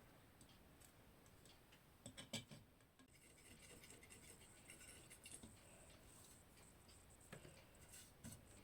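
Near silence with faint scattered clicks, taps and light scratching of small objects being handled at a work table, with a short cluster of louder taps about two seconds in and a few more near the end.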